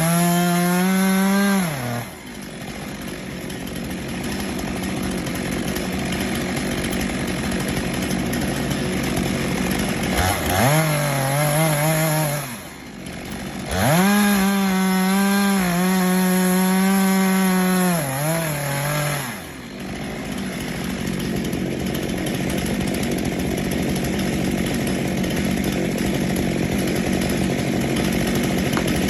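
Gas chainsaw revving up to a high, steady full-throttle whine three times: briefly at the start, again around ten seconds in, and for about five seconds after that. Between the revs it runs lower and rougher, chewing through wood.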